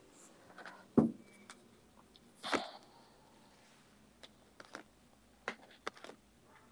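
Tarot cards being handled on a table: scattered soft taps and small clicks, with a duller thump about a second in and a short hissing sound a moment later.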